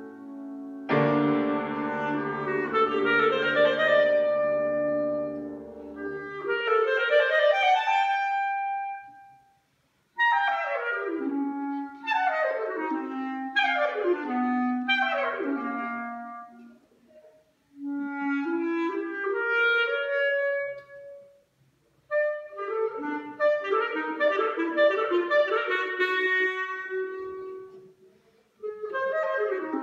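Clarinet playing a classical solo with piano accompaniment: long held notes over low piano chords, a quick rising run, then four fast falling runs, with short breaks between phrases.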